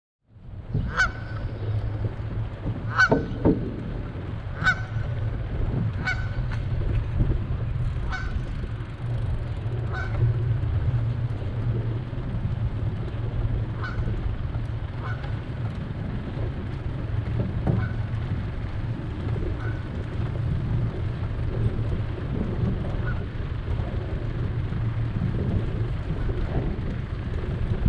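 A bird's short calls repeating about every one to two seconds, strongest in the first ten seconds and fainter after, over a steady low rumble.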